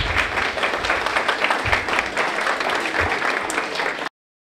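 Audience applauding with dense clapping, cut off abruptly about four seconds in.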